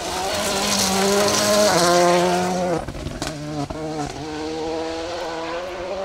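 Four-wheel-drive Volkswagen Polo rally car's engine at high revs under load as it passes on a loose gravel surface, with a hiss of tyres and gravel under it. The revs climb to their loudest about two seconds in, drop sharply about three seconds in, then pull steadily again at a lower pitch.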